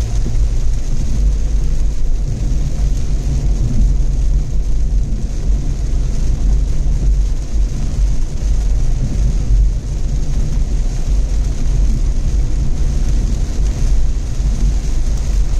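A car driving along a road: steady low rumble of engine and tyre noise.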